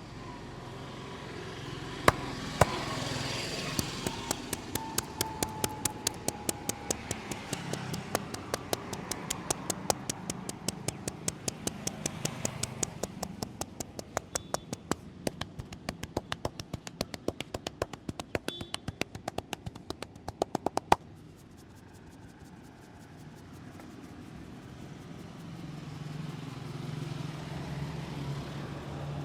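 Percussive hand massage: a masseur's hands slap rapidly and rhythmically on a client, several strikes a second, stopping abruptly about three-quarters of the way through, with street traffic behind.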